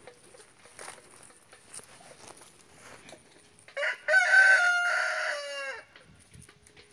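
A rooster crows once, about four seconds in: a short first note, then a long held call of nearly two seconds that drops in pitch at the end.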